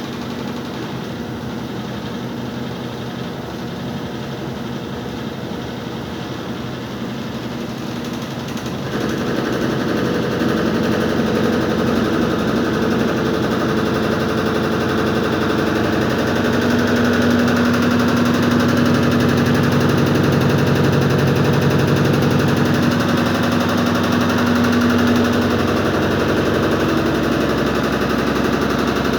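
Brastemp washing machine in its spin cycle: a steady motor hum with a fast rattle, louder from about nine seconds in. This is the abnormal spin noise that the owner calls a problem.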